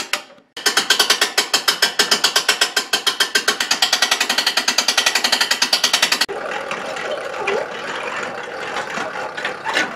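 Hand-cranked trailer winch ratcheting, a fast even run of clicks from its pawl as it winds the 3 mm wire rope over the pulleys to lift the bandsaw carriage. About six seconds in the clicking stops and a softer, steady mechanical rattle follows.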